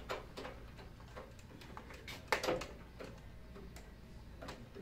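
Light, irregular clicks and taps of control-panel parts being handled and fitted into a metal DDC panel enclosure, with one sharper click a little over two seconds in.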